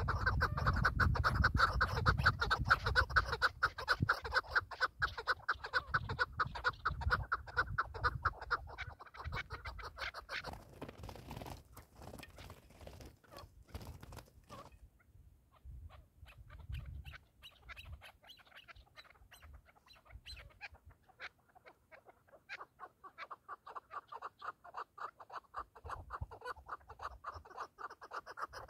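Chukar partridges calling in rapid chuckling series, thick for the first ten seconds, then sparse, then building again about two-thirds of the way through. Wind rumbles on the microphone in the first half.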